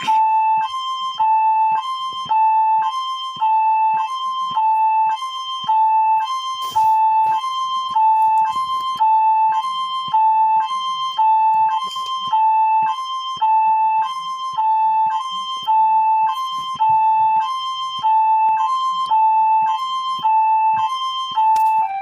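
Electronic hi-lo siren: a two-tone wail that alternates steadily between a lower and a slightly higher pitch, about one high-low pair a second.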